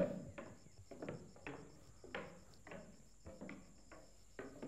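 Footsteps, irregular knocks about two a second, over crickets chirping in a steady high trill.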